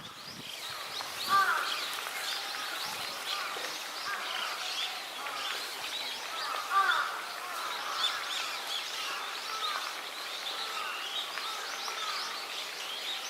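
Many small wild birds chirping and calling at once in a busy, overlapping chorus, with a couple of louder calls standing out about a second and a half in and again around seven seconds.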